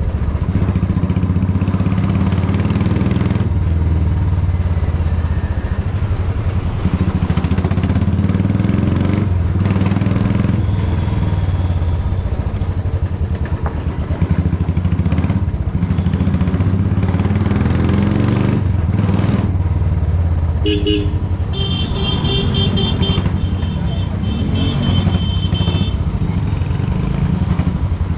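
Royal Enfield Classic 350's single-cylinder engine running loud through an aftermarket GT megaphone silencer while the bike is ridden, its exhaust note rising and falling with the throttle. Vehicle horns honk several times in the last third.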